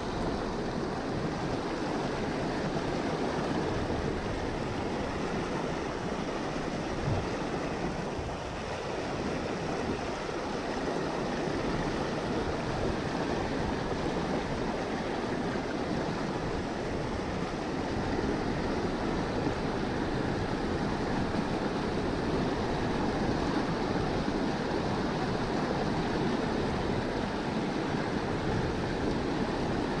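River water rushing over a low rock ledge in a small rapid: a steady, full rush of white water that grows a little louder past the middle.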